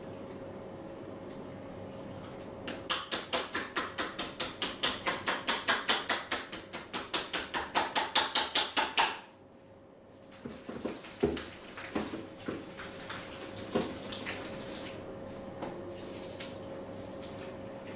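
Hands striking the body in a fast, rhythmic percussive massage stroke, several slaps a second. It starts a few seconds in and stops abruptly about halfway. A few scattered lighter taps and pats follow, over a faint steady hum.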